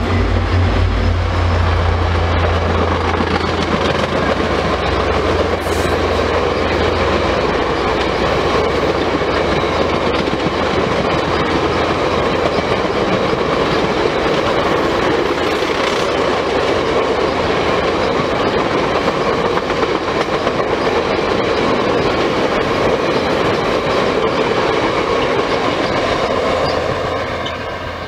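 VIA Rail passenger train passing: the low rumble of its two F40PH diesel locomotives for the first several seconds, then the stainless-steel passenger cars rolling by with steady wheel clatter on the rails. The sound fades near the end as the train draws away.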